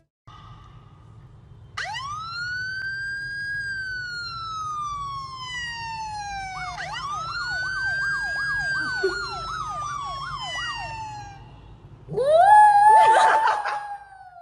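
Emergency vehicle siren wailing: a tone rises, then slowly falls over several seconds. A second wail has a fast warbling yelp over it, and a louder, rougher rising wail comes near the end, over a steady low rumble.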